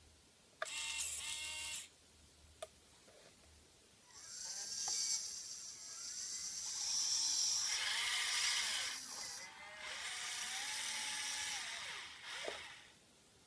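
Huina 580 RC excavator's small electric motors and gearboxes whining in bursts as the boom and arm move, pitch rising and falling with motor speed. A short burst about half a second in and a click a little later, then a long stretch of whining from about four seconds in until near the end.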